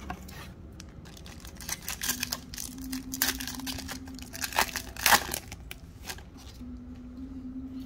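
Trading card pack wrapper being torn open and crinkled by hand: a run of irregular crackling and crinkling, loudest about three and five seconds in.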